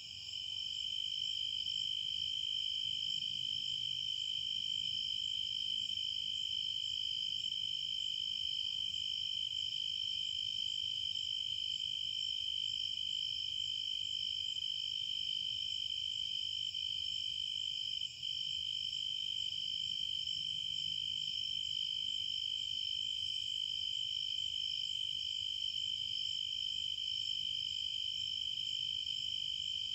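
Crickets trilling in a continuous, steady chorus.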